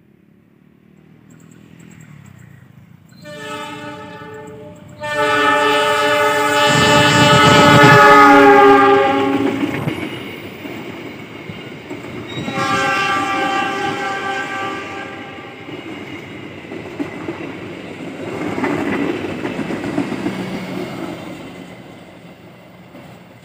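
An Indonesian passenger train's locomotive horn sounds three blasts: a short one, a long loud one, then another. This is the driver's semboyan 35 horn signal. The coaches then rumble and clack over the rails as the train runs through the station.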